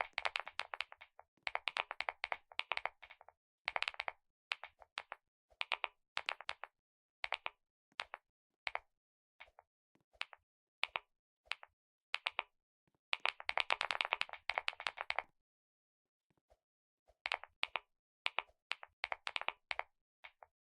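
Computer keyboard being typed on: quick runs of key clicks alternating with single, spaced key presses, with a short pause about two-thirds of the way through.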